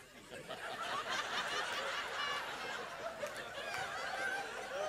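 A congregation laughing, many voices overlapping, starting up about half a second in.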